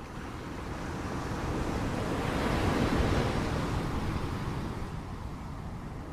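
Sea surf: a wave swells to its loudest about three seconds in, then washes back down.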